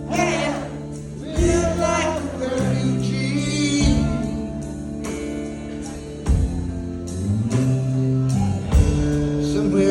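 Live rock band playing an instrumental intro: electric guitars and bass holding chords, with heavy drum hits about every two and a half seconds.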